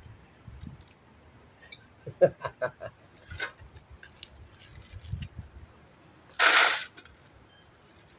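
Small metal shed-kit hardware (screws and fittings) clinking and rattling as it is handled and sorted by hand, with a quick run of light clinks about two seconds in. A short rush of noise, the loudest sound, comes about six and a half seconds in.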